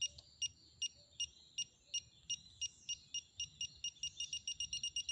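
ACDelco digital torque wrench beeping, a short high two-tone beep about every 0.4 seconds, speeding up over the last couple of seconds into rapid beeping as the bolt nears the set torque of 50 newton meters.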